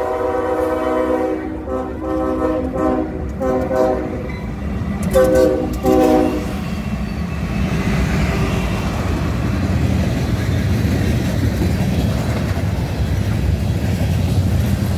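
CSX freight locomotive's multi-chime air horn sounding, one long blast then several short blasts, stopping about six and a half seconds in. After that the locomotives and loaded hopper cars roll past with a steady low rumble and some clickety-clack of wheels on the rails.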